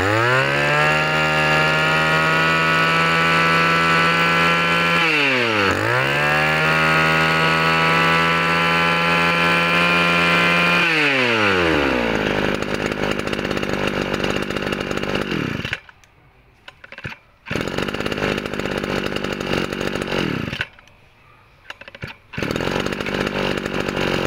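Zenoah Komatsu G3K brush cutter's 33cc two-stroke engine revved up to a high, steady pitch. About five seconds in it drops and revs back up, then falls to idle around twelve seconds. The sound drops away briefly twice near the end.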